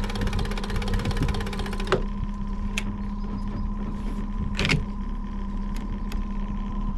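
Steady hum of the boat's trolling motor. Over it, a fast fine ticking from the fishing reel as line pays out stops suddenly about two seconds in. Then come a few sharp clicks and one louder knock as the rod is set into its rod holder.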